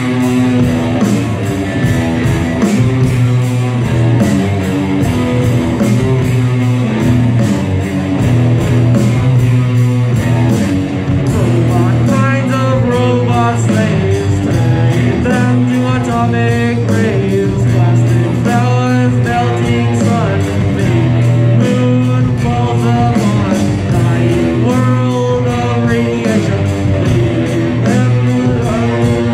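Live rock band playing: distorted electric guitars, bass and drums. A singer's voice comes in about twelve seconds in and carries on over the band.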